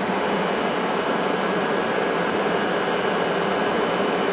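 Standing Hitachi regional train humming and whirring steadily as its onboard equipment runs, fairly loud and unchanging.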